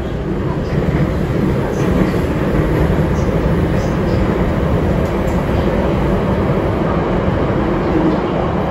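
Beijing Subway Line 10 train running steadily through the tunnel, heard from inside the passenger car. It makes a continuous low rumble of wheels on rail, with a faint steady tone and a few light clicks over it.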